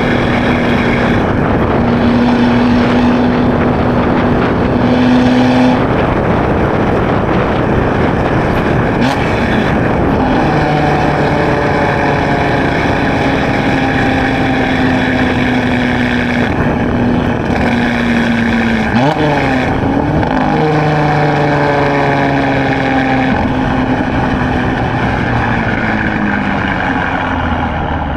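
Borla ATAK axle-back exhaust on a 2016 Chevrolet Camaro RS while driving, droning at a steady engine speed over wind and road noise. About two-thirds of the way through the revs rise briefly and drop, like a gear change, and then the engine note slowly falls.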